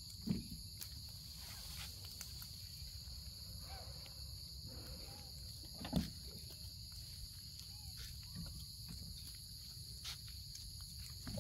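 Steady high-pitched drone of insects, over a low rumble, with two dull thumps: one just after the start and one about six seconds in.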